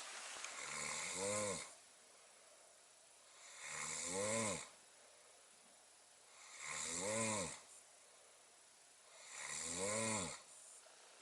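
Four drawn-out moose grunts, one about every three seconds, each rising and then falling in pitch with a breathy rasp.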